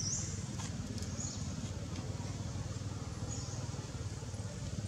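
A steady low rumble with three brief high chirps: one at the start, one about a second in and one past three seconds, and a few faint clicks.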